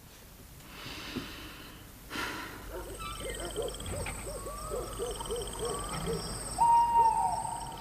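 Owl hooting: a quick run of short hoots, then a longer, louder hoot that drops in pitch at its end near the close.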